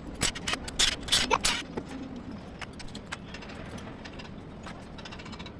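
A quick run of sharp metallic clanks and clicks of handled metal parts, lasting about a second and a half, then a steady low rumble with faint scattered ticks.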